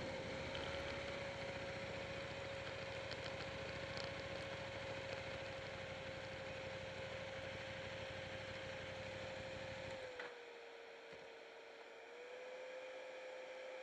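Buell 1125R's V-twin engine idling faintly at a standstill under a steady hum. About ten seconds in the low engine rumble stops, while the hum carries on.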